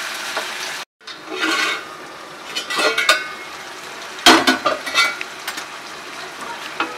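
Chicken pieces sizzling in oil in a non-stick frying pan on slow-to-medium flame, with a spatula stirring and scraping against the pan. There are a few clusters of clinks, the loudest about four seconds in, and the sound cuts out briefly just before one second in.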